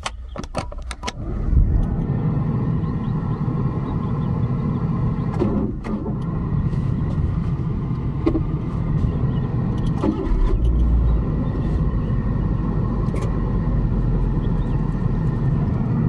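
A few sharp clicks at the start, then a loud, steady low rumble that sets in about a second and a half in and holds.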